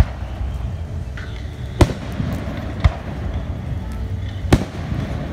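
Aerial fireworks shells bursting: four sharp bangs at uneven gaps over about five seconds, the second and fourth the loudest, over a steady low rumble.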